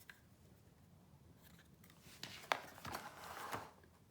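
Plastic packaging being handled: about two seconds in, a sharp click followed by a second or so of crinkling and rustling.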